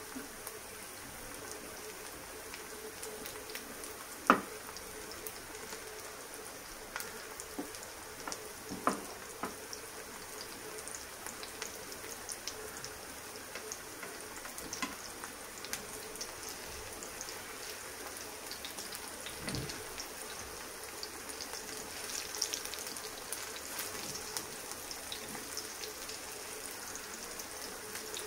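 Semolina and vegetable patties shallow-frying in oil in a pan: a steady sizzle with fine crackles and pops. A few sharp knocks come through it, the loudest about four seconds in and another about nine seconds in.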